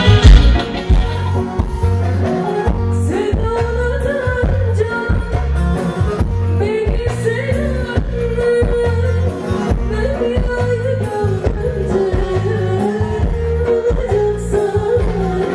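A woman singing live with band accompaniment: a long, wavering melody line over a steady pulsing bass beat.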